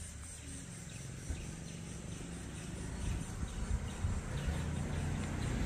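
Outdoor ambience with insects chirping steadily and a low rumble that grows louder toward the end.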